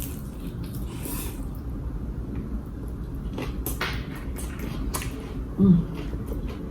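Mouth chewing crispy air-fried chicharon bulaklak (pork intestine), with scattered sharp crunches and a short low hum about five and a half seconds in.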